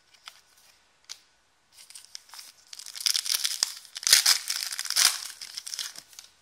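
Foil wrapper of a 2016-17 Totally Certified basketball trading-card pack being crinkled and torn open, a dense crackling that is loudest in the middle, with a few light card-handling clicks before it.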